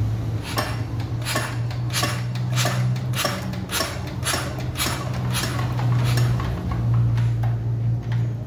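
Dongfeng R175 single-cylinder diesel turned over by hand with its injector nozzle out, the nozzle letting off a short, sharp spurt of spray about every 0.6 seconds over a steady low hum. The nozzle's opening pressure has just been turned up so that it sprays hard and fine instead of dribbling fuel.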